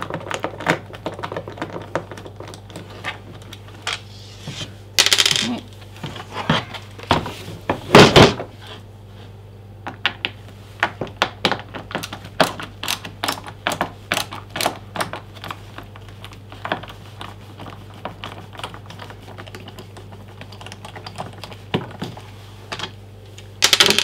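Irregular run of small clicks and taps from hands and a screwdriver working on the plastic housing of a Biltema LBS 2600 leaf blower/vacuum as its screws are undone and parts handled. A short scraping burst comes about five seconds in, a loud thump about eight seconds in, and another brief burst near the end.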